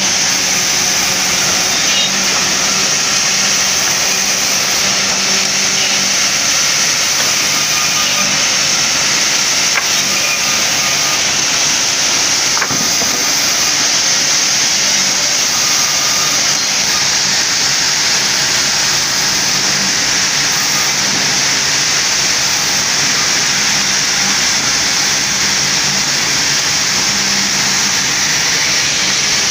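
Large sawmill band saw running steadily: a loud, even high-pitched hiss over a low hum.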